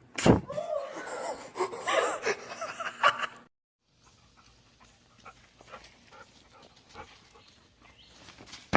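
A dog whining and yelping with pitch rising and falling, which cuts off suddenly about three and a half seconds in; after that only faint scattered clicks and knocks.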